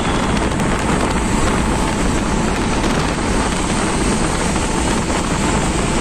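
Steady road and wind noise heard from inside a moving car as it drives through a road tunnel.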